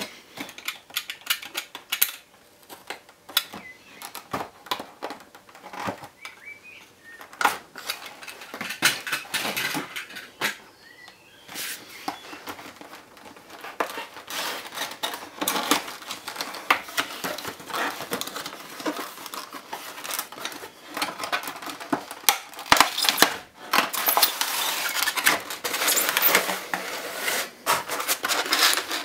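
Cardboard box and plastic packaging handled by hand: scrapes, taps and clicks as the box is opened and a clear plastic tray slid out. Louder, steadier plastic rustling in the last few seconds as the bagged model is handled.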